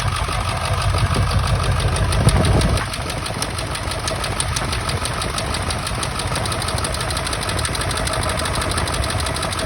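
Ford 7.3 Powerstroke V8 turbo-diesel idling with a fast, even clatter, running rough with an injector misfire. About three seconds in, its deep rumble drops and the engine gets slightly quieter.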